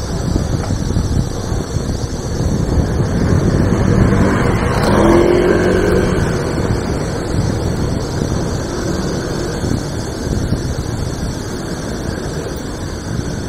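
Street traffic under a steady low rumble, with a motorcycle engine passing close about five seconds in.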